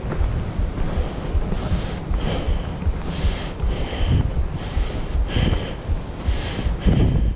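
A hiker's heavy breathing while climbing, in hissy puffs about once a second, over a steady low rumble of wind on the microphone.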